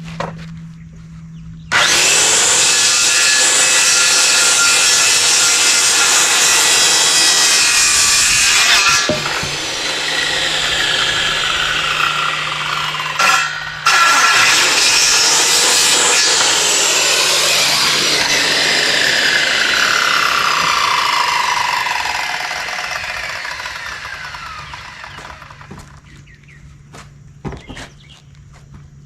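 Electric power saw starting up about two seconds in and cutting 2x8 lumber boards, stopping briefly and restarting about halfway. The blade then winds down with a long falling whine that fades out near the end.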